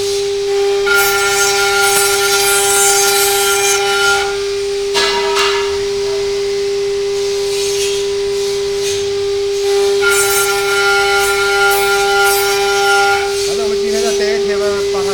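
CNC router spindle running with a steady high whine, overlaid twice by a few seconds of louder, hissing cutting noise as the bit works the wood.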